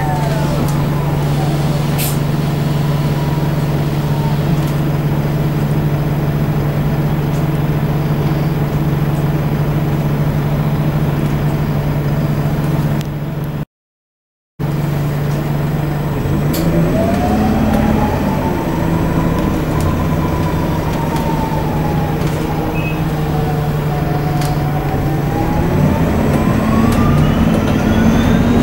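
Interior sound of an Alexander Dennis Enviro400 hybrid double-decker bus. For the first half there is a steady low hum, then a short break. After that the electric drive's whine rises as the bus pulls away, falls as it slows, and rises again as it picks up speed.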